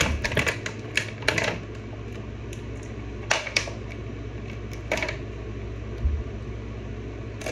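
Scattered sharp plastic clicks and rustles as a wrestling action figure and its packaging pieces are handled, over a steady low hum.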